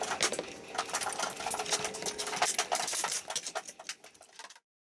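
Small metal engine parts and hand tools clicking and clinking as parts are fitted onto a small engine by hand. The sound cuts off suddenly near the end.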